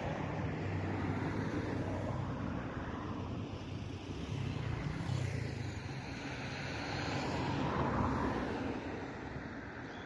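A motor vehicle's engine and road noise with a low hum, swelling to a peak about eight seconds in and then fading away.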